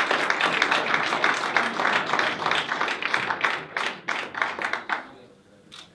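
People clapping and applauding, dying away about five seconds in.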